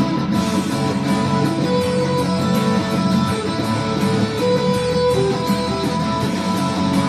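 Instrumental guitar music: plucked guitar notes playing on without a break, with some melody notes held for a second or more.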